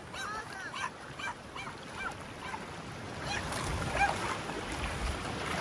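A dog whining and yipping in short, high, repeated cries, excited over a freshly landed fish, with a low rumble of wind and surf swelling a few seconds in.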